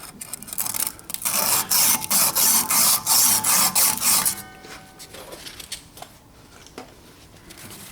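220-grit sandpaper rubbed back and forth on a bench grinder's 5/8-inch steel shaft, about three quick hissing strokes a second, buffing off burrs and rust so the wheel will slide on. The strokes stop about four seconds in.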